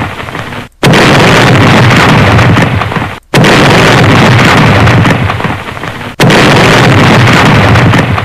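Countdown-intro sound effects: a loud, rumbling boom that hits suddenly and fades over about two seconds, repeated three times roughly every two and a half to three seconds, with the end of an earlier one fading as it begins.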